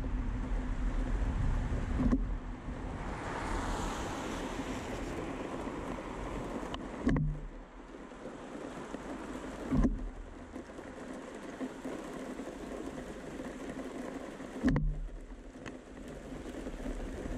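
Vehicle rolling along a wet road with tyre and wind noise that dies down after about seven seconds as it stops and waits, leaving a steady low hum. A few short dull thumps break in every few seconds.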